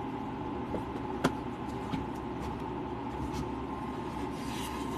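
Items being rummaged in a bag and a wooden cutting board lifted out: one sharp click about a second in, a few light ticks, and rubbing near the end, over a steady hum.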